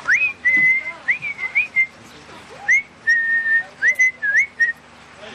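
A person whistling a short tune of held notes with quick upward slides, in two phrases separated by a brief pause.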